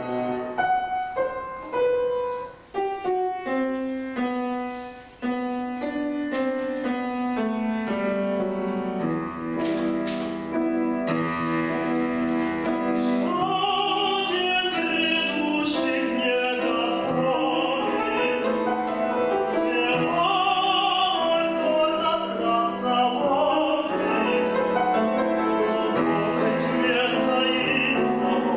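Classical song performance: piano accompaniment alone at first, then a male singer's voice comes in about halfway, singing with a wide vibrato over the piano.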